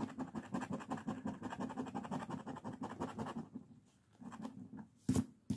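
Rapid scratching at the coating of a scratch-off lottery ticket, many quick strokes a second for about three and a half seconds. A few softer strokes follow, then two sharp taps near the end.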